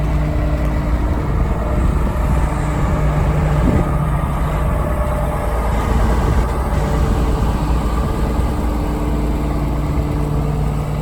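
John Deere 690B excavator's diesel engine running steadily, with a low hum that wavers for a few seconds in the middle.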